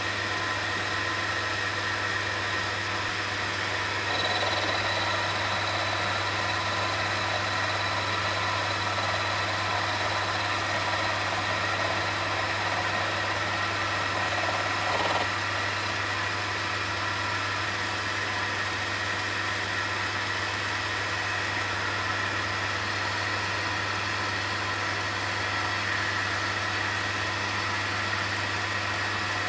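Myford Super 7 lathe running steadily with a constant low hum, its spindle turning a 1018 carbon steel acme leadscrew while the tool takes light cuts. A faint high whine comes in about four seconds in and fades out about fifteen seconds in.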